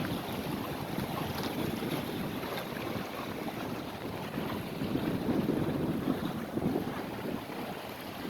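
Wind rushing across the microphone, a steady noise that swells for a moment about five seconds in.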